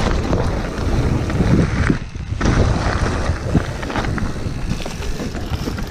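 Wind buffeting an action camera's microphone, mixed with the rumble of mountain-bike tyres rolling fast over gravel, with a short drop in the noise about two seconds in.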